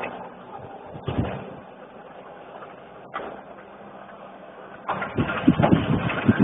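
Rastrojero pickup's engine running steadily at a distance, with a couple of short knocks. About five seconds in, loud, irregular low noise takes over.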